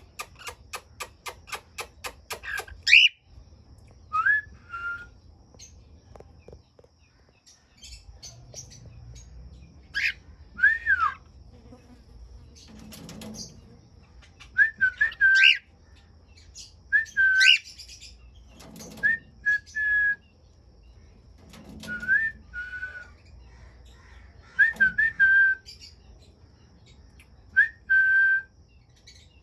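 Cockatiels calling: short whistled notes that rise and then drop, repeated every couple of seconds. A quick run of clicking chatter comes in the first few seconds.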